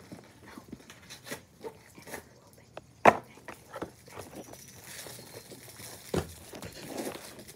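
Sealed trading-card box packaging being handled and pulled open: scattered light crinkles and clicks, with a sharp knock about three seconds in and another about six seconds in.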